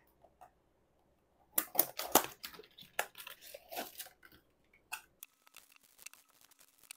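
Foil One Piece Card Game booster packs crinkling and tearing as they are handled and pulled out of their box: a dense run of short rustles and crackles starting about a second and a half in and lasting about three seconds, then a single click and a few faint ticks.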